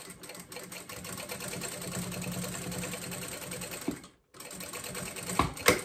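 Sewing machine stitching steadily at a fast even rhythm, sewing a strap onto mesh fabric. It stops briefly about four seconds in, then starts again, with a few sharp clicks near the end.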